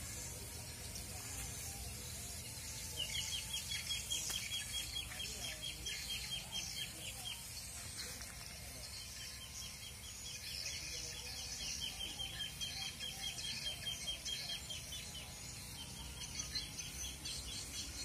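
Swiftlets twittering: two long runs of rapid, short, high chirps, one starting about three seconds in and another from the middle until near the end, with fainter higher twitters throughout.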